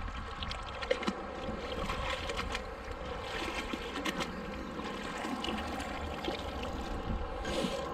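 Water trickling and lapping, with scattered light clicks and knocks.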